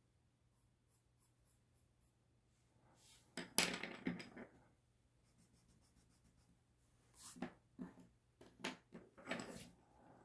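Faint sketching: a drawing tool scratching across a surface in short strokes, several in quick succession near the end, with one louder, longer rub about three and a half seconds in.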